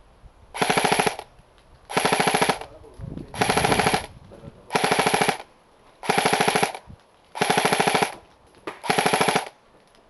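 Dboys M4 CQB RAS II airsoft electric gun firing on full automatic in seven short bursts, each about half a second of rapid clattering shots, spaced about a second and a half apart.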